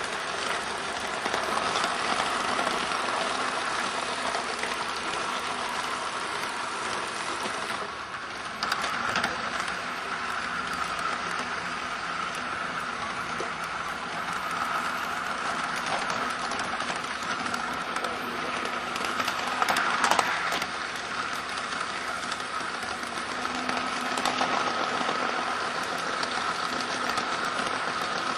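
Garden-railway model train running on its track, heard from a camera riding on one of its wagons: a steady rattle of wheels over the rails with a steady whine, and a few brief louder clatters.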